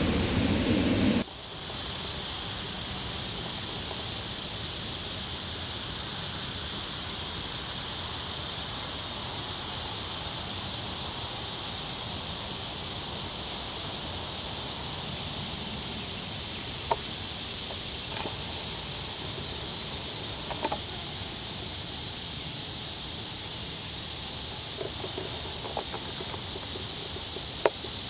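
Steady, high-pitched chorus of insects, with a few faint ticks in the second half. A louder, lower rushing noise cuts off abruptly about a second in.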